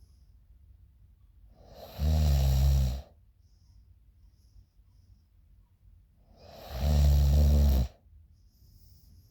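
A sleeping woman snoring: two loud snores about five seconds apart, each lasting about a second with a low buzz, and faint breathing in between.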